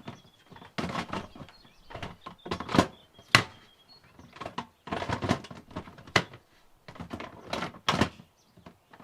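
A string of irregular sharp knocks, clicks and rattles: a cordless lawn mower's battery and its plastic casing being handled.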